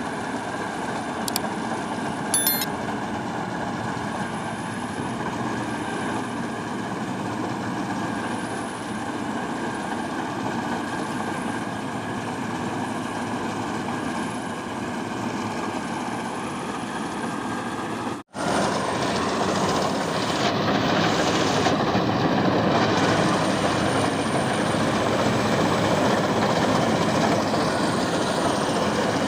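Farm machine running steadily, a continuous mechanical drone with a faint constant whine. About eighteen seconds in it cuts out for an instant and comes back louder and rougher.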